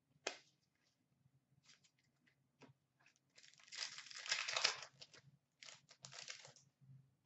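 Wrapper of a 2017 Upper Deck Goodwin Champions trading-card pack being torn open and crinkled, in a long rustle about halfway through and a shorter one near the end, after a few light clicks of cards being handled.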